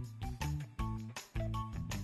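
Background music with a steady beat, a bass line and short, high melody notes.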